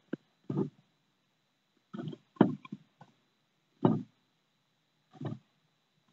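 Horsfield's tortoises mating, the male mounted on the female: short repeated sounds from the pair, five in all, about one every one and a half seconds.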